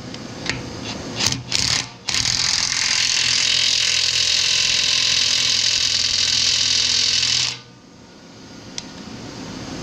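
DeWalt 18V XR brushless half-inch cordless impact wrench hammering a tine nut tight on a muck grab. Two short blips of the trigger, then one steady run of about five and a half seconds that stops sharply.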